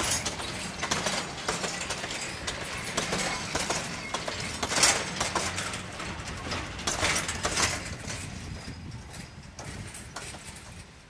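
Empty narrow-gauge coal wagons rolling slowly past at track level, their wheels and bogies clicking and clanking over the rail joints. The sound fades away in the last few seconds as the end of the train moves off.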